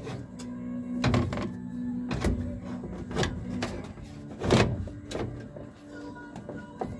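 1968 Camaro gauge cluster's plastic housing knocking and scraping against the dash as it is pushed by hand into its opening, with several separate clunks, the loudest about four and a half seconds in.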